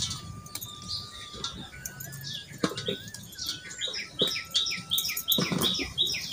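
Birds chirping, with one bird repeating a short call about two to three times a second in the second half. A few sharp light knocks stand out louder, as green chillies are handled and dropped onto a steel plate while being destemmed.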